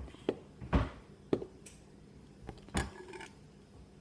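A handful of irregular sharp clicks and knocks of hard plastic as a fidget cube is worked at to pry its cover off.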